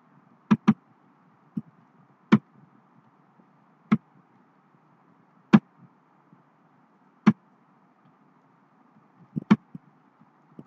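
A series of sharp clicks: a double click near the start, single clicks every second and a half to two seconds, and another double click near the end, over a faint steady hum.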